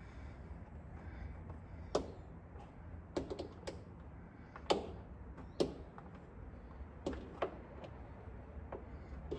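Electrical cord being wrapped around the hooks of a plastic cart, giving scattered light clicks and knocks, several close together a little past three seconds in, over a steady low hum.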